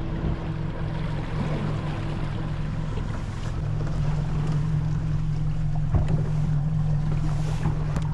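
Boat motor running steadily at cruising speed, a low drone, with wind and water rushing past the hull.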